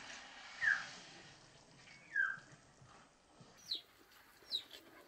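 Birds chirping: four short, downward-sliding chirps, two lower ones in the first half and two higher-pitched ones near the end.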